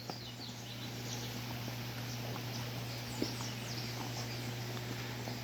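Quiet farmyard background: a steady low hum, with faint bird chirps and a small knock about three seconds in.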